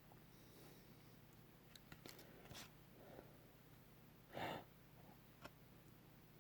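Near silence: room tone with a few faint clicks and one short, soft breath-like puff a little after four seconds in.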